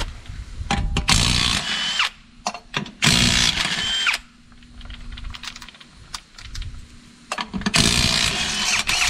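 Cordless power tool spinning lug nuts off a car wheel in three bursts of about a second each, with light metal clicks between the bursts.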